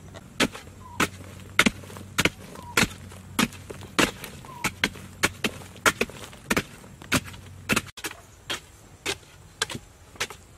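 Two wooden-handled hand digging tools chopping into hard, stony earth in alternating strokes, about two sharp thuds a second.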